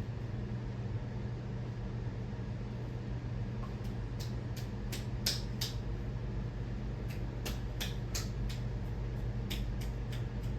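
Ceiling fan running with a steady low motor hum, with scattered sharp clicks at uneven intervals, more often in the second half.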